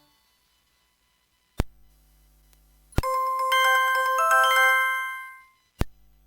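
Short bell-like ringtone from the Samsung SGH-D600 set, played on an MT6225 feature phone: a quick run of chiming notes that rings out and fades over about two seconds. It starts about three seconds in. A sharp click comes about a second and a half in, another as the tone starts, and one more near the end.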